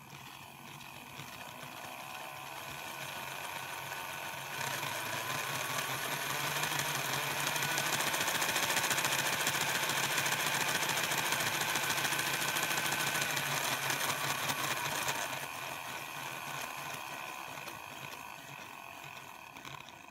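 A Hornby Railroad Midland Compound model locomotive's electric motor and gears whine while its driving wheels spin in place on the rails, slipping without moving the engine. The whine climbs in pitch and loudness over the first several seconds and holds. About three-quarters of the way through it drops and fades away.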